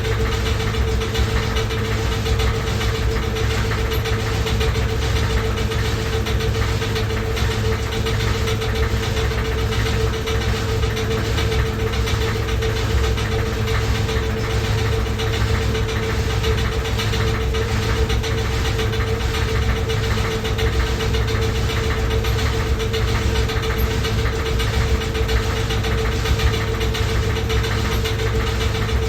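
Loud washing machine running, a steady hum over a heavy low rumble with a faint regular pulse.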